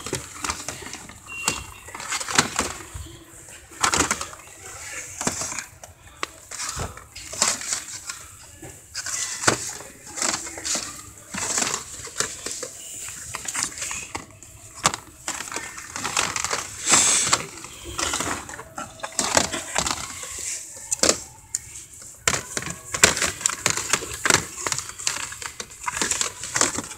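Action figure blister packs being flipped through and pushed aside by hand: irregular clacks and rustles of plastic and cardboard packaging knocking together, close to the microphone.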